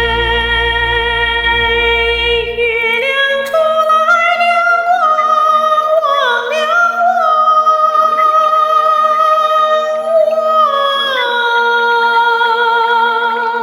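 A woman's high classical voice singing a slow Yunnan folk song in long held notes with vibrato. The melody climbs to a higher note about three and a half seconds in and slides back down near the end. A low bass accompaniment drops out about three seconds in, leaving a steady low drone.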